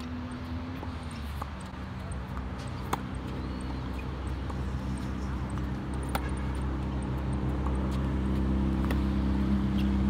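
Tennis ball struck by rackets in a rally, a sharp pop about every three seconds. Under the pops runs a steady low mechanical hum that grows louder.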